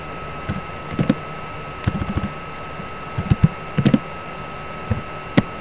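Keystrokes on a computer keyboard: irregular single and paired key clicks with short pauses between them. A faint steady thin tone runs underneath.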